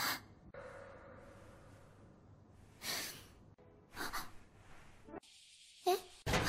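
A girl's short breathy vocal noises: quick intakes of breath, a sigh and small gasps, four or five in all, each a second or more apart.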